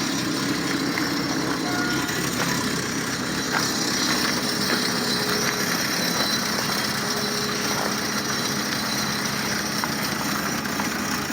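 Chevy Cavalier engine running steadily; the engine has a rod knock.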